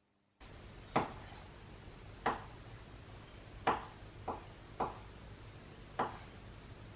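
Kitchen knife cutting food on a cutting board: six separate sharp knocks of the blade hitting the board, spaced unevenly about a second apart.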